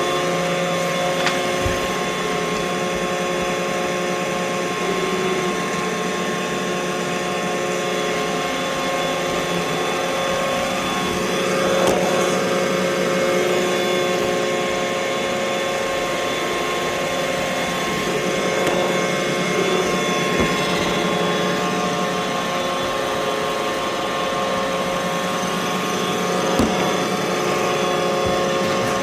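Roomba robot vacuum running with a steady whirring hum, with a few brief knocks.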